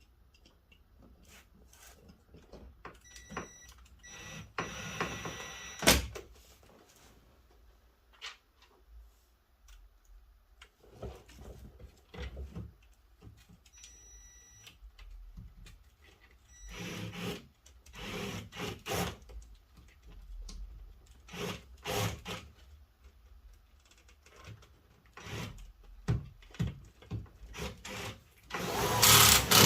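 Hand work on a Fox-body Mustang's door panel: scattered clicks, knocks and rubbing of plastic trim and tools, with a couple of brief high whines. A sharp knock comes about six seconds in, and a louder rustling burst comes near the end.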